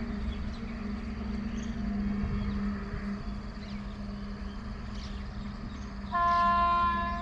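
A train horn blows once for about a second near the end, over a steady low hum and rumble, with birds chirping.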